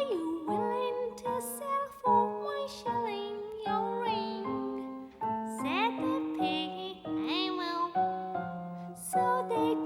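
A song: a woman singing with gliding, bending notes over a piano accompaniment.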